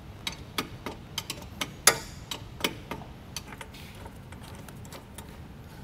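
Ratchet wrench clicking in short strokes as it turns a motorcycle's rear axle adjuster bolt to take up drive chain slack. The clicks come a few a second, the loudest about two seconds in, and thin out after about three seconds.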